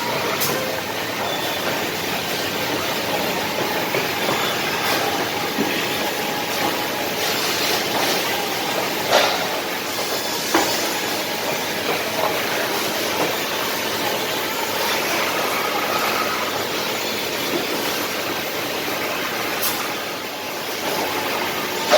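Double-head woodworking drilling machine running: a steady mechanical hiss and rumble with a few sharp knocks now and then.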